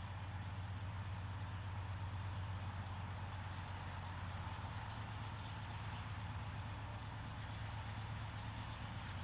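A steady low engine hum, running evenly without change.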